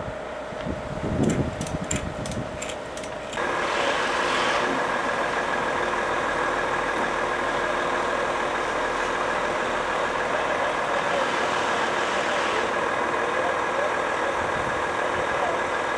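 A quick run of about six sharp metallic clicks, then, from about three seconds in, a heavy truck's diesel engine running steadily with a constant high whine on top.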